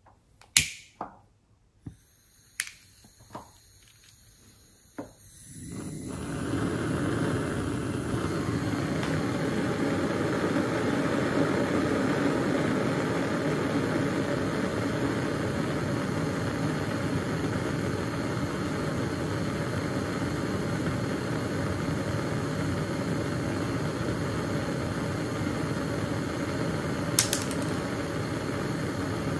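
A hand-held lighter clicks several times, then a Bunsen burner lights about five seconds in and burns with a steady rush of gas flame. There is a single light tick near the end.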